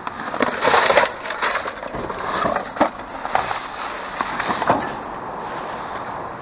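Plastic trash bags and rubbish being handled and shifted in a dumpster: irregular rustling and crunching with sharp crackles, heaviest about a second in.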